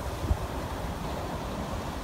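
Ocean surf churning and washing against a rocky shore, a steady rush of water, with light wind rumble on the microphone.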